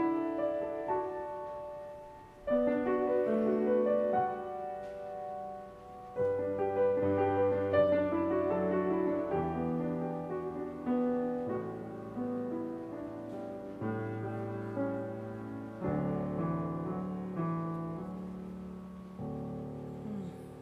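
Solo Yamaha grand piano playing a worship-song arrangement in sustained chords. It closes on a final chord that rings and fades.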